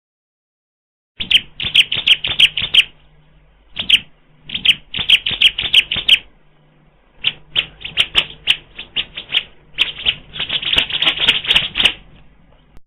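Bar-winged prinia (ciblek) singing: rapid runs of sharp, high chirps in three bursts, starting about a second in, with short pauses between them.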